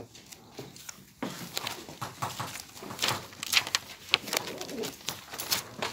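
Chalk writing on a blackboard: short taps and scratching strokes in quick, irregular succession.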